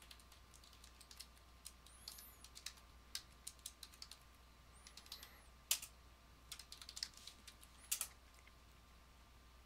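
Typing on a computer keyboard: irregular key clicks with short pauses, two of them sharper, one a little past halfway and one near the end.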